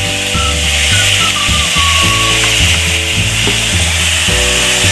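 Background music with a bass line over a steady sizzle of chicken sautéing in a pot.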